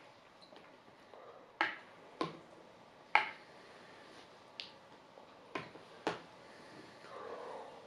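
Metal spoon clinking and scraping against a bowl while eating, about six sharp clicks a second or so apart, the loudest about three seconds in. A softer, duller rustle near the end.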